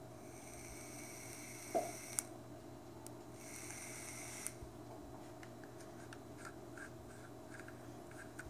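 Vape box mod's electronics giving a high, thin whine twice as it is fired, first for about two seconds, then for about a second, with a knock between. Later comes a quick run of small button clicks, about four a second.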